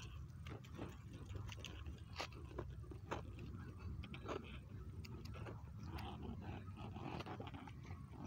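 Rabbit scrabbling at loose soil at its burrow mouth: faint irregular scratches and small clicks, over a low steady rumble.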